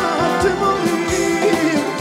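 Instrumental break of a Serbian folk-pop song: a bending lead melody over keyboard chords and a steady drum beat.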